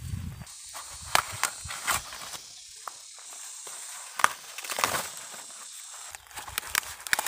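Dry corn leaves and husks rustling and crackling as ears of sticky corn are snapped off their stalks by hand, with several sharp snaps, over a steady high hiss that stops about six seconds in.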